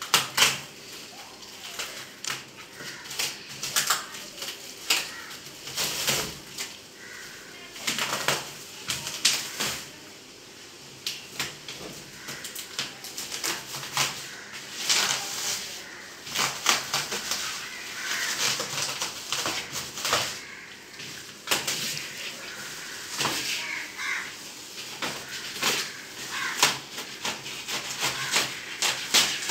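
Plastic bubble wrap and packing tape being pulled and torn off a large flat package, with irregular crinkling and crackling and sharp snaps.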